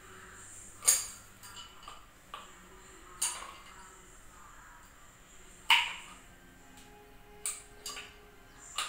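Metal hand tools clinking as a ratchet wrench and socket are handled and fitted together: several sharp clinks a second or more apart.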